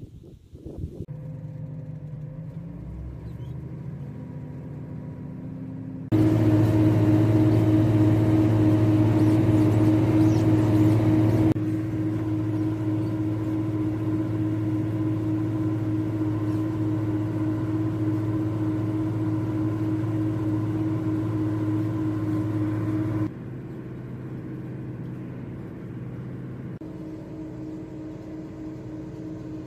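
Fiat 160-90 Turbo DT tractor's six-cylinder turbo diesel running steadily while pulling a plough, its engine note holding one pitch. The level jumps up sharply about six seconds in, then drops back in two abrupt steps later on.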